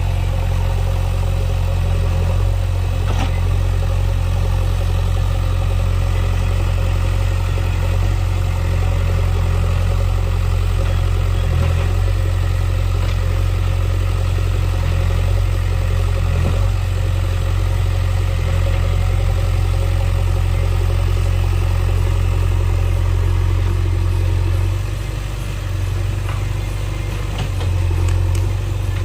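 JCB backhoe loader's diesel engine running steadily with a deep, even hum, easing off for a moment about four seconds before the end.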